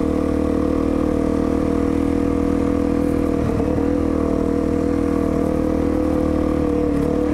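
Motorcycle engine running at a steady, unchanging pitch, with no revving.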